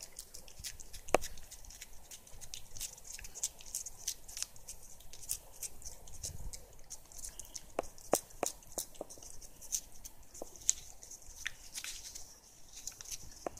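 A cat licking a creamy puree treat from a squeeze tube: a quick run of small wet tongue clicks, a few a second, with some louder smacks.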